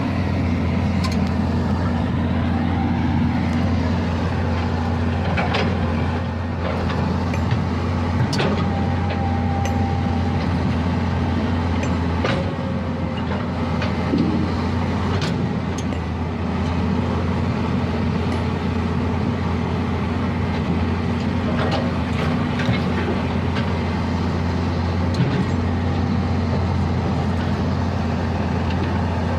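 Komatsu excavator's diesel engine running steadily, with occasional sharp metallic clanks a few seconds apart.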